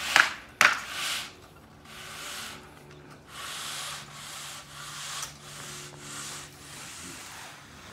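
Long-handled concrete float scraping back and forth over freshly poured wet concrete: a series of rasping sweeps, each under a second, with two sharper, louder scrapes near the start.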